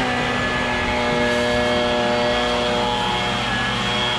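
Handheld leaf blower running at a steady pitch, blowing leaves and debris off a boat deck.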